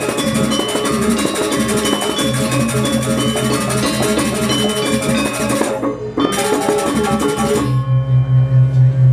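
Balinese gamelan music: bronze metallophones playing fast interlocking notes over drums. Near the end it gives way to a low, evenly pulsing hum.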